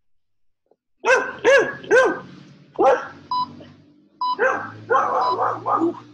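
A dog barking: four sharp barks, then a quicker run of barks about four seconds in. Short electronic beeps sound between the later barks.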